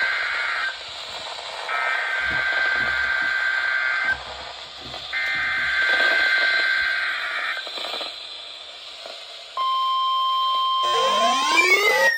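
Three bursts of EAS SAME digital header data, a rasping two-tone warble, with short gaps between them. About ten seconds in, the steady single-tone NOAA Weather Radio 1050 Hz warning alarm begins, and rising siren-like sweeps start over it near the end.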